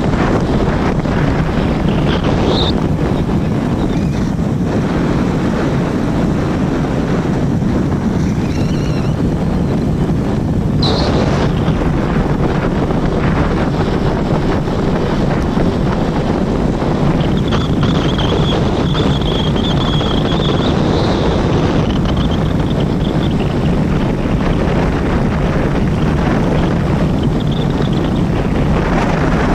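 Wind rushing over the microphone: a loud, steady rumble. A few faint high tones rise above it, brief ones early and about eleven seconds in, and a longer wavering one over several seconds in the middle.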